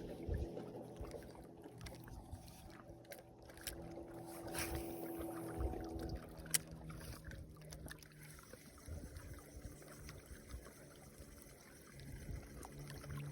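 Faint steady hum of a small boat's motor running at low speed, its pitch shifting slightly a couple of times, with a few small clicks and some water sounds.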